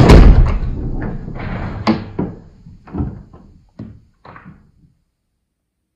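Interior door slammed shut with a heavy thud, followed by a few smaller knocks and rattles that die away over the next few seconds.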